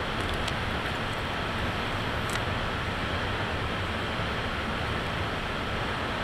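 Steady rushing noise with a faint steady high tone, and a few faint clicks in the first couple of seconds.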